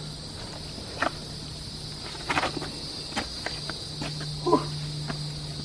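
Insects drone steadily in the background while shoes and hands scuff and knock on rock as someone climbs, with a few separate scrapes and taps. A short vocal sound, the loudest moment, comes about four and a half seconds in.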